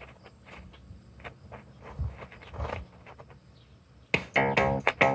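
Clicks and knocks from the cassette-deck keys of a Magnavox AQ5051/17 boombox worked by hand, then, about four seconds in, music starts playing loudly from the boombox's tape deck through its built-in speakers.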